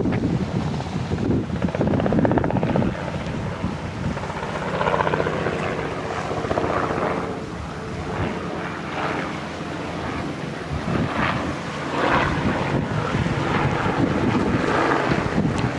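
Wind buffeting the microphone in uneven gusts, with a steady engine drone underneath.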